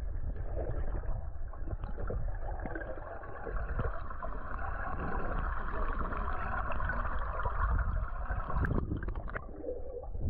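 Water sloshing and splashing against the side of a small boat, over a steady low rumble.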